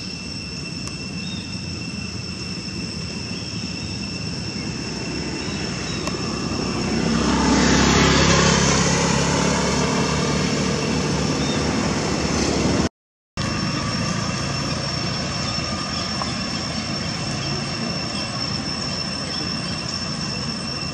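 Steady outdoor traffic noise, with a motor vehicle passing close by about seven to nine seconds in, swelling up and then falling away. Two thin, steady high tones run underneath, and the sound cuts out briefly about thirteen seconds in.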